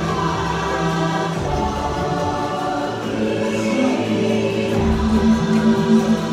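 Music with a choir singing long held notes, the chords shifting every few seconds.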